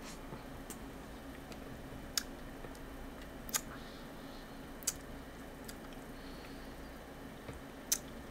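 Sharp clicks of small hard plastic pieces, a clear plastic candy-kit tray and stick being handled and tapped together: four or five separate clicks spread over several seconds. A steady low hum runs underneath.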